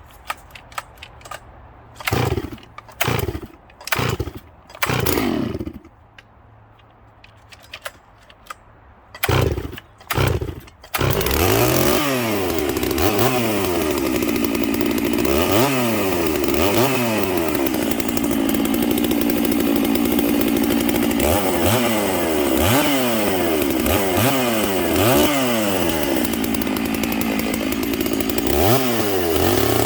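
Freshly rebuilt Stihl MS 650 two-stroke chainsaw, started cold. There are several short bursts of engine sound over the first ten seconds, then it catches about eleven seconds in and keeps running, its revs rising and falling over and over.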